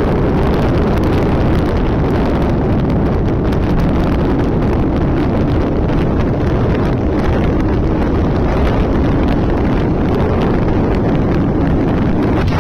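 Loud, steady wind buffeting the microphone of a Bajaj Pulsar UG3 motorcycle rider at highway speed, blended with the bike's running and road noise.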